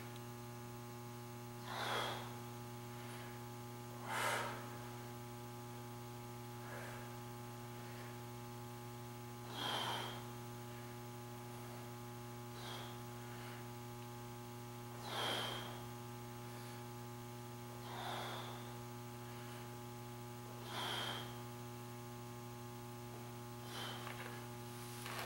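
A man's short, forceful breaths during a set of dumbbell bench presses, about ten of them a few seconds apart, one with each rep, over a steady electrical hum.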